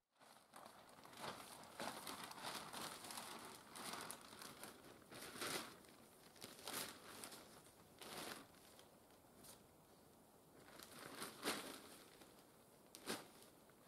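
A sheet of black polythene crinkling and rustling as it is unfolded and spread out by hand, in faint, irregular rustles with a few louder ones around the middle and near the end.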